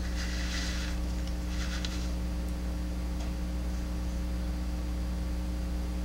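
Steady electrical mains hum, with faint rustling of hands handling a closed folding knife near the start and again around two seconds in.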